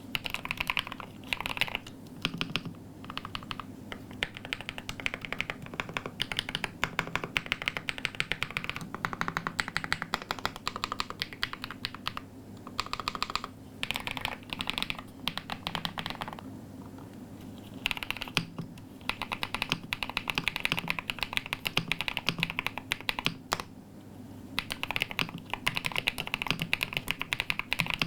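Typing on a Monsgeek M1W mechanical keyboard with an aluminium case, Keys U Bunny switches and ABS keycaps: fast runs of keystroke clacks, broken by a couple of short pauses in the middle.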